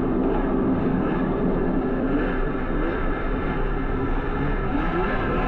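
Snowmobile engine running under throttle, its pitch gliding up and down as it revs and eases off, over a steady rushing noise.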